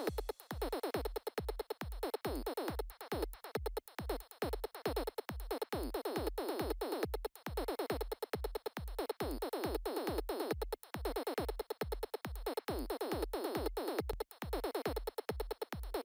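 Electronic background music with synthesizer over a steady, fast beat.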